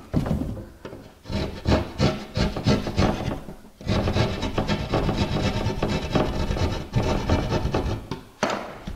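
Hand tool scraping and cutting at the edge of an outlet cutout in drywall, trimming a hole that is a little small at the top. A few separate strokes, then from about four seconds in a fast run of back-and-forth strokes that stops just before the end.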